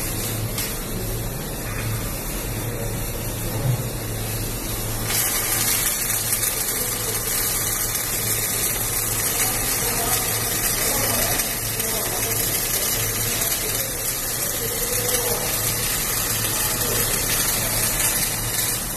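Flux-cored arc welding: the welding arc crackles and hisses steadily, getting louder about five seconds in. A steady low hum of machinery runs underneath.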